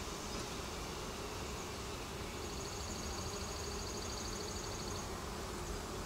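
Steady hum of many honeybees buzzing around an open Langstroth hive. From about two to five seconds in, a faint, high, fast-pulsing trill runs over it.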